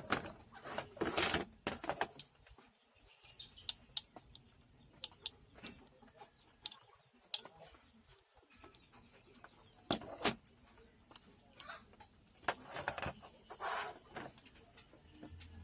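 Irregular clicks and taps with short rustling bursts, the loudest about a second in, around ten seconds in, and again near the end.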